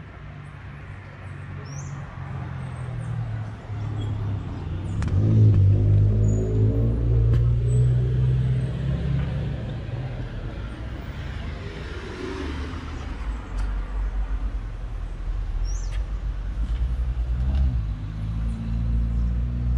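Car engines running on a city street, with a low steady hum of traffic. One vehicle grows louder about five seconds in and stays close for a few seconds.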